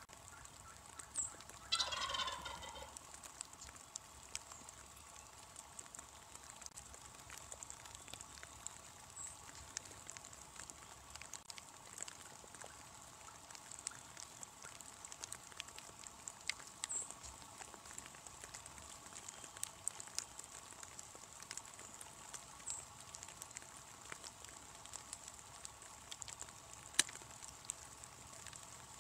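An eastern wild turkey gobbler gobbles once, a rapid rattling call lasting about a second, about two seconds in. Scattered light ticks of raindrops run throughout, with one sharp tick near the end.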